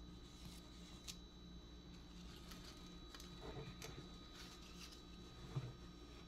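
Near silence: faint room tone with a steady hum and a few scattered small clicks and rustles, one slightly louder bump near the end.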